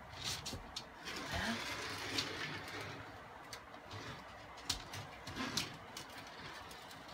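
Faint rustling with scattered clicks and knocks as a broom and plastic dustpan are moved about and a dog noses at a toy in the dustpan, with a couple of louder knocks about two-thirds of the way through.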